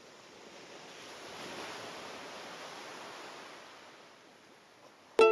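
Soft, even rushing noise that swells and then fades away. Near the end, a sharply plucked ukulele chord starts the background music.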